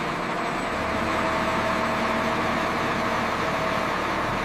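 Steady machine hum with a faint held tone.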